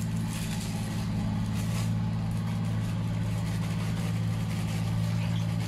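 A motor running steadily at idle, a low even hum that holds one pitch throughout, with a few faint handling ticks over it.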